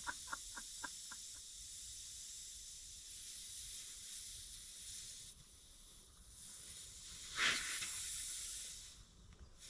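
Air hissing steadily out of a punctured ATV tyre through the hole being plugged, the tyre leaking. About seven and a half seconds in there is a short, louder rush of air.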